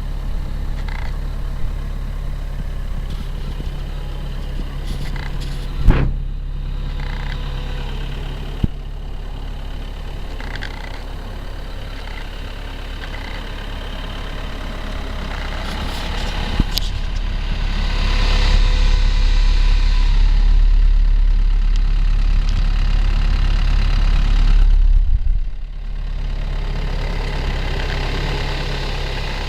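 Kubota SVL75 skid steer's four-cylinder diesel engine running steadily, getting louder for about eight seconds past the middle and then dropping back to its earlier level. A few sharp knocks, the loudest about six seconds in.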